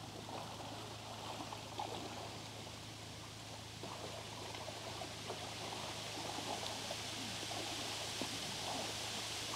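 Faint, steady water noise with fine crackling, over a steady low hum.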